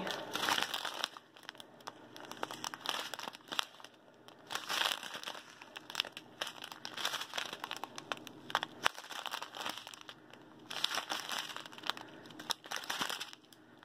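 Small plastic bags of resin diamond-painting drills crinkling and rustling as they are handled and shuffled between the fingers, in irregular on-and-off bursts of crackle.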